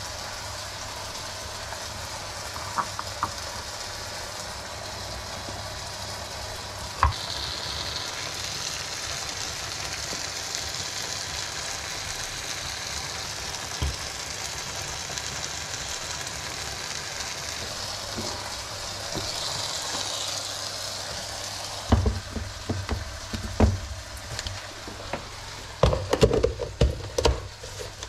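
Chicken breast sizzling in a frying pan, a steady hiss that grows louder about a quarter of the way in. Near the end, a run of sharp knocks and clatter from handling kitchenware.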